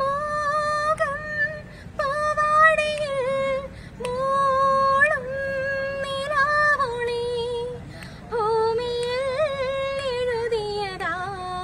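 A woman singing a slow melody in long held notes with a wavering vibrato, phrase after phrase.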